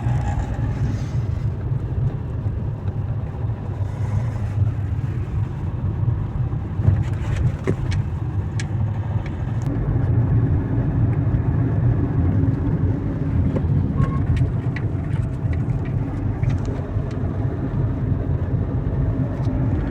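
Renault Grand Scenic IV on the move, a steady low rumble of road and running noise with a few light knocks as it goes over bumps. No suspension squeak is heard, with the lower-arm silent blocks freshly replaced.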